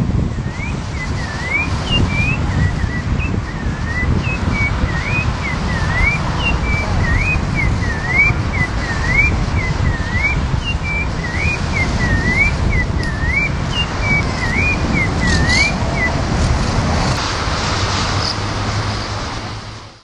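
A sabiá songbird singing a long run of short, clear whistled notes that sweep up and down, about two notes a second, stopping a few seconds before the end. A steady low rumble runs underneath.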